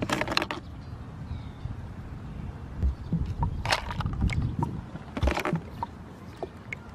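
Toy sea animals of plastic and rubber being rummaged through and knocked against a clear plastic tub: a few scrapes and clatters over a low rumble.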